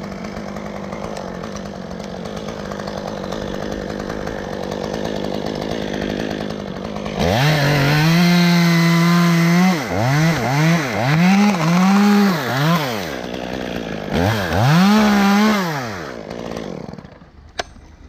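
Top-handle chainsaw running at a steady low speed, then revved up hard about seven seconds in and held high for a couple of seconds. It is then blipped up and down in several quick bursts before dropping away near the end.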